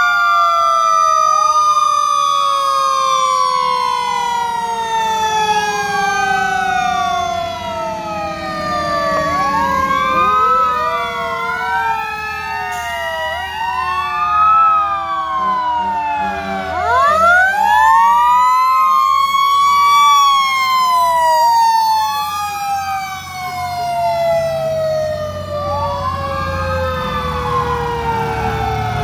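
Several fire truck sirens sounding together. One wail falls slowly in pitch while others swoop up and down every couple of seconds, over the low rumble of the trucks' engines.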